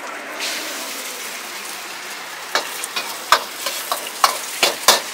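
Beaten eggs frying in hot oil in a carbon-steel wok: a steady sizzle that starts about half a second in. From the middle on, a metal ladle stirring the eggs strikes and scrapes the wok several times, the loudest clanks near the end.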